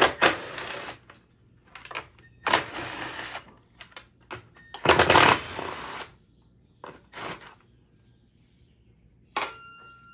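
Removal of the plastic covers from a walk-behind mower, heard as four rasping, clicking bursts of about a second each with short gaps. Near the end comes a sharp click, then a faint steady tone.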